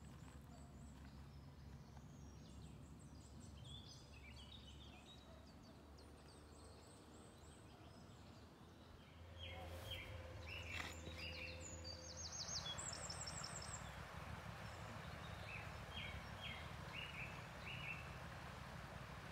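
Songbirds calling, with short repeated chirps and a quick high trill about twelve seconds in. Underneath is the faint steady rush of a shallow woodland stream, which grows louder about halfway through.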